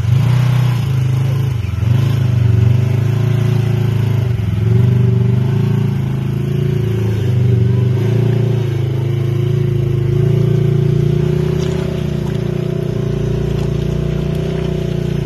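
Polaris RZR XP 4 1000 side-by-side's engine running hard under load, its revs rising and falling as it tows a Toyota SUV up a steep dirt hill. The SUV's engine runs alongside, steadier toward the end.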